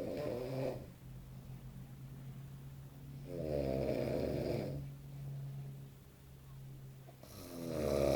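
A man snoring loudly in his sleep: a long, rasping snore about every four seconds, three in all, with a steady low hum underneath.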